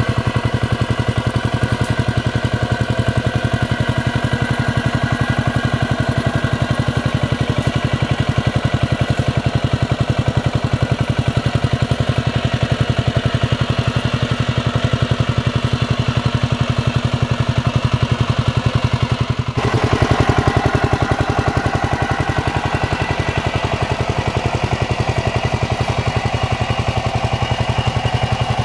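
Kamco walk-behind power tiller's single-cylinder diesel engine running steadily under load as the tiller puddles a flooded rice paddy, a fast even beat. There is a brief break about two-thirds of the way through, after which the tone changes.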